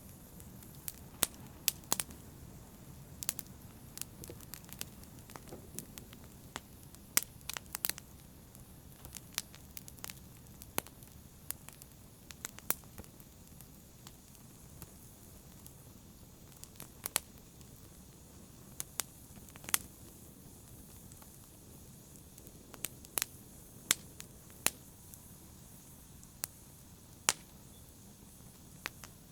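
Fire in a fireplace crackling: sharp, irregular pops and snaps, several close together at times, over a faint steady low rush of the flames.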